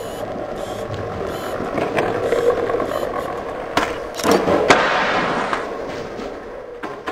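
Skateboard wheels rolling, a steady noise, with two sharp knocks of the board a little past the middle.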